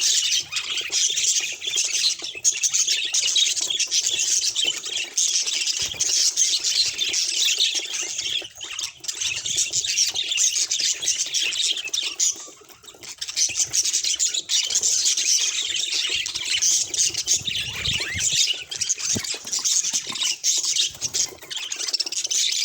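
Budgerigars chattering almost without a break, with a short lull a little past halfway.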